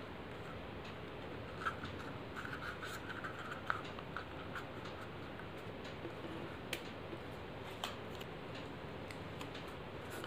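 Faint handling of paper pieces: scratchy rustling for about two seconds near the start, then a few light clicks and taps, over a steady low hiss.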